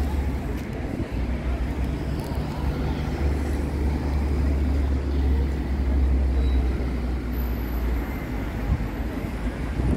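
Steady low rumble of a vehicle engine under general seafront noise, with the wash of waves on the beach.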